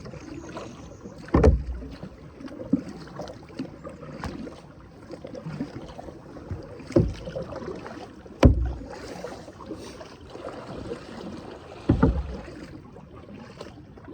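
Kayak being paddled: water swishing against the paddle and hull, with about five sharp knocks at irregular intervals.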